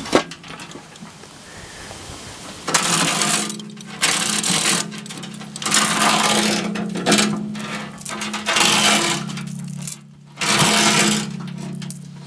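A motor hums steadily from about three seconds in, under repeated loud rushing bursts of about a second each.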